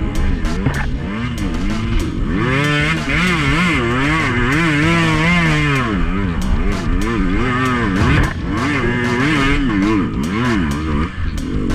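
Two-stroke dirt bike engine being worked on the throttle while riding a trail, its pitch rising and falling again and again as the revs come up and drop off, with scattered sharp clicks and knocks.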